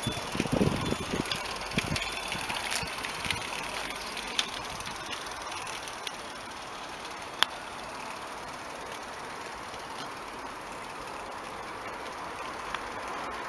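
Small live-steam model tram with a double-acting engine running on a garden railway track: a steady hiss with scattered clicks and one sharp click about seven seconds in. A few low rumbles and clicks in the first two seconds.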